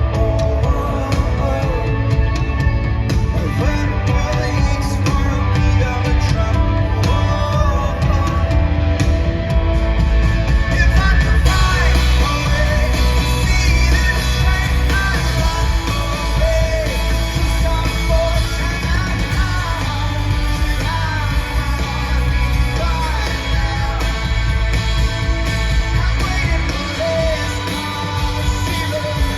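Live rock band performance: a full band with drums, bass and guitars under a sung lead vocal. The sound grows fuller and brighter about eleven seconds in.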